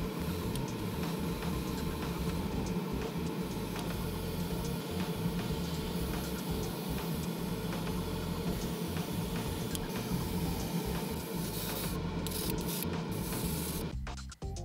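Airbrush spraying paint onto a figure part: a steady hiss of air and paint over a steady low hum. A few sharper spray bursts come near the end before it cuts off.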